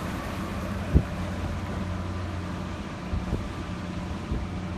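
Wind buffeting the microphone over a steady low vehicle rumble, with a sharp thump about a second in and a few softer ones later.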